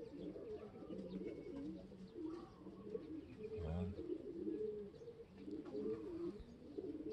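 Several racing pigeons cooing, their low coos overlapping one another.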